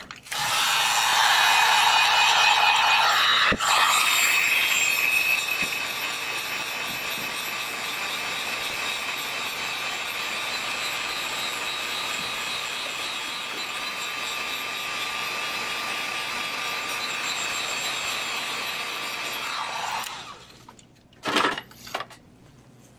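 Heat gun running with a steady blowing noise and a light whine, louder for the first few seconds, then switched off about twenty seconds in. Two sharp knocks follow near the end.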